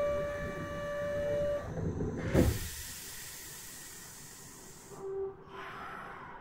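Door-closing buzzer of a Kyoto Municipal Subway 20 series train, heard from inside the car. The steady buzz stops about a second and a half in, and about a second later the doors shut with a sharp thud, followed by a couple of seconds of hiss.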